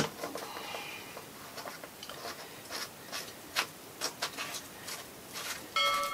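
Faint clicks, taps and rubbing of a hand fitting the oil filler cap back on a marine diesel engine after an oil change. Near the end a bell-like chime starts and rings on.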